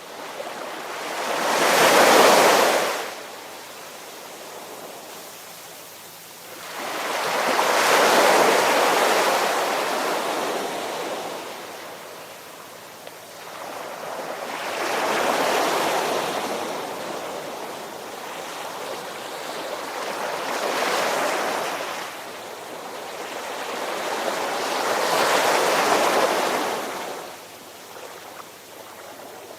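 Ocean waves surging in and washing out, five swells of rushing water a few seconds apart, each rising and fading away.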